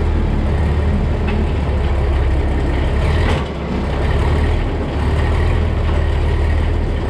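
Tractor engine running steadily under load, driving a Patz TMR feed mixer through its PTO while the mixer's side conveyor discharges feed into the bunk. It is a low, steady drone with mechanical clatter over it, easing briefly about three and a half seconds in.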